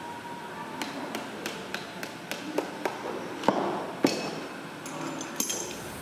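Irregular light taps and clicks of metal motorcycle handlebar parts being handled and knocked on a worktable during assembly, about a dozen in all, with two louder knocks a little past halfway.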